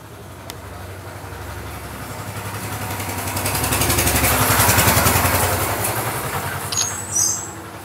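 A motor vehicle's engine passing by, growing louder to a peak about midway and then fading away, with a brief high-pitched squeak near the end.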